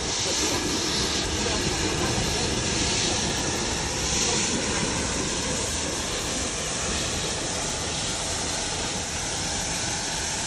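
Small narrow-gauge NA-class steam tank locomotive moving off along the track, with a steady hiss of steam over its running.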